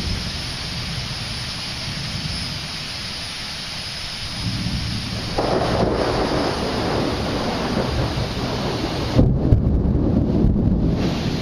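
Thunder rolling over steady rain. The rumble swells about halfway through and is loudest near the end.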